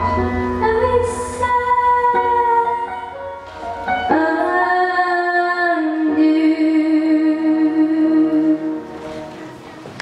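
A girl's solo singing voice over instrumental backing, finishing the song with one long held note of about four seconds that fades out near the end.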